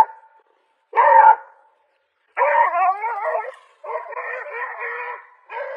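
A puppy barking in a series of high yaps. The later ones are longer, with a wavering, howl-like pitch.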